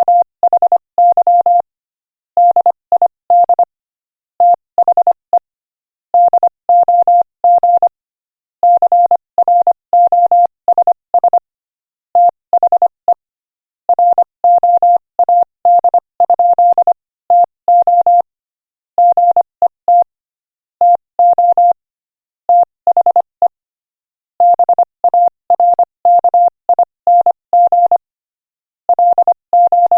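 Morse code sent at 25 words per minute: a single steady tone keyed on and off in short and long beeps (dots and dashes), grouped into letters and words with short pauses between them.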